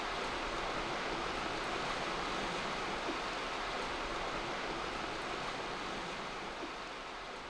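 Steady rush of river water, an even hiss without any engine note, fading slowly near the end.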